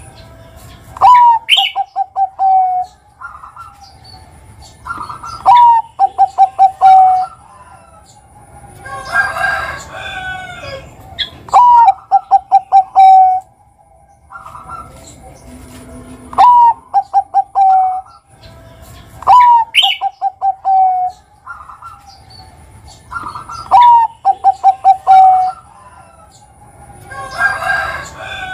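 Zebra dove (Bangkok-type perkutut) cooing. It repeats its song every four to five seconds: a rising opening note, then a quick run of short, even coos.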